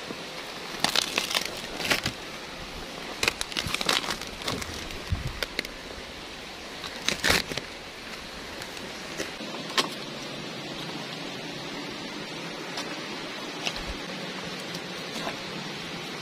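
Large fresh banana leaf rustling and crackling in several bursts as it is gripped and handled, over a steady background hiss. The bursts come in the first half; later there are only a few light clicks.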